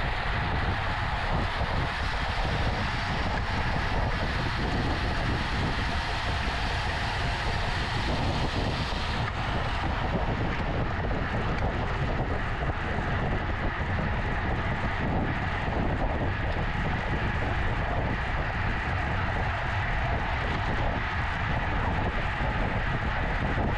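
Steady wind rush over the microphone of a camera riding on a racing bicycle at speed, with road and tyre noise underneath.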